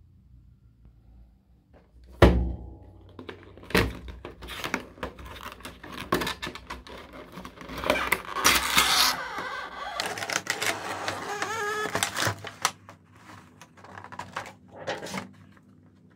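Clear plastic toy packaging being handled and opened by hand: a sharp knock about two seconds in, then a run of clicks and scratchy rubbing and crackling of stiff plastic, thickest in the middle and dying away near the end.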